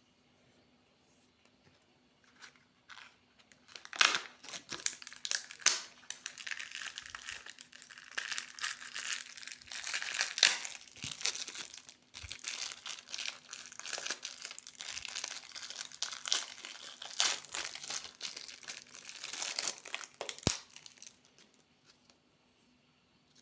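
Plastic candy wrapper crinkling as it is handled and torn open, a dense run of crackling that starts a couple of seconds in and stops a few seconds before the end, with one sharp click near the end.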